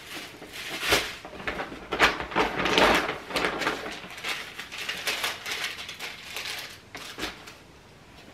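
Plastic shopping bag and tote bag rustling and crinkling as candles are unpacked from them. It is busiest in the first few seconds and thins out toward the end.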